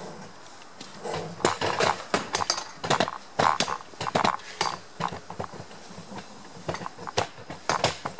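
A run of irregular clicks, knocks and light clatter, starting about a second in and stopping just before the end.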